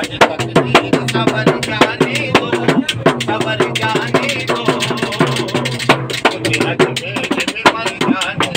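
Qawwali singing with a fast hand-played dholak barrel drum and a hand-held frame drum keeping a dense, driving rhythm under the singing voices.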